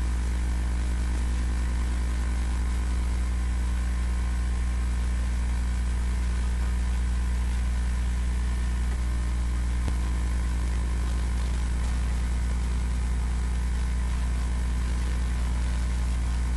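A steady, unchanging low electrical-sounding hum with a layer of hiss over it.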